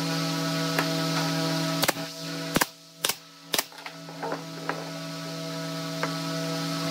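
Pine boards of a small drawer box knocking and clacking against each other and the wooden workbench as they are handled and set into place. The sharp knocks are loudest in a cluster around the middle, with lighter taps after, over a steady hum.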